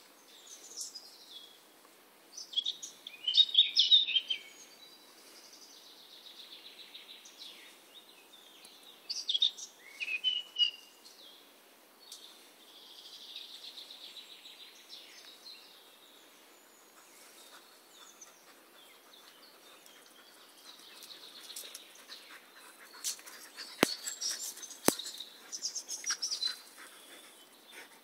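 Woodland songbirds singing: repeated short phrases and trills from several birds. Two sharp clicks come close together near the end.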